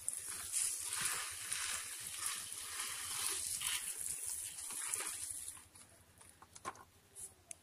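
Pressure sprayer's jet hissing as it sprays fungicide solution over a potted rose's leaves and soil, stopping about five and a half seconds in. A few faint clicks follow.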